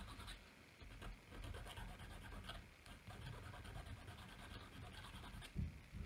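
Faint, repeated scratching of a small file worked back and forth over a tiny glue-stiffened, painted fabric strap piece held in pliers, rounding off its corners.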